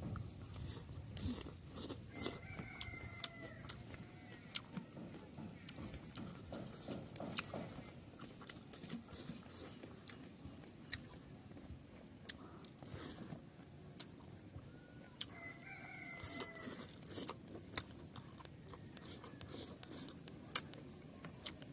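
Close mouth sounds of a person eating by hand: chewing with frequent sharp lip-smacking clicks. A rooster crows twice in the background, about two seconds in and again about fifteen seconds in.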